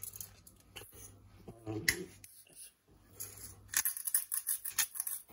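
Salt being dispensed over a whole chicken: a run of quick, dry clicks and rattles, thickest about four seconds in.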